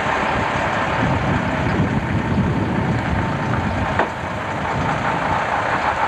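Heavy lorry's diesel engine running at low speed under load as it hauls a laden low-loader slowly round a tight bend. A short sharp click about four seconds in.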